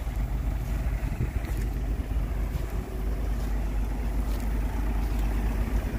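Low, steady rumble of a tractor's diesel engine running at idle, mixed with wind on the microphone.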